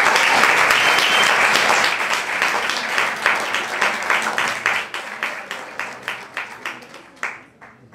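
Audience applauding, dense at first, then thinning out to a few scattered claps that die away near the end.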